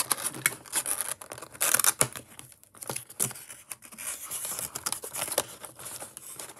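Hands opening a small cardboard model-train box: irregular clicks, taps and rustling scrapes of the cardboard and its flaps, with one louder scrape just under two seconds in.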